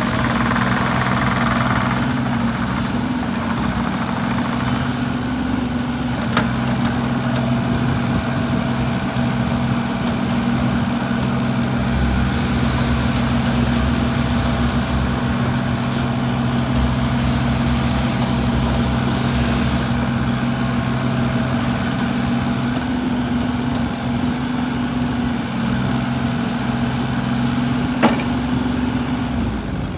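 Kobelco SK25SR-6E mini excavator's diesel engine idling steadily, with a light click twice.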